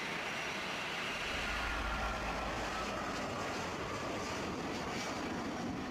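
Boeing 777 jet airliner climbing out after takeoff: a steady rush of jet engine noise, with a heavier low rumble from about one to three seconds in.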